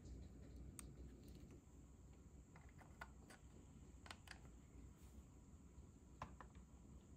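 Near silence: room tone with a few faint, scattered clicks of a plastic scale model car and tweezers being handled.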